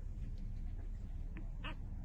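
Newborn puppy, about five days old, giving two short squeaks near the end, the second one louder, over a steady low rumble of background noise.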